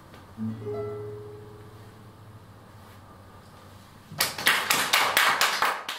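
A classical nylon-string guitar's last chord rings out and slowly fades. About four seconds in, a small audience breaks into a short spell of clapping, about eight quick claps, which cuts off abruptly.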